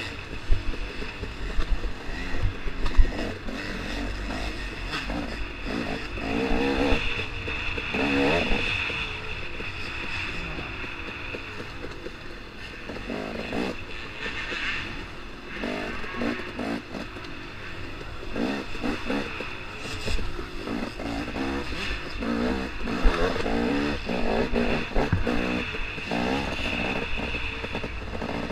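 KTM 250 XC-W two-stroke dirt bike engine, heard on board, revving up and down over and over as the throttle is opened and closed. A few sharp knocks come in the first three seconds.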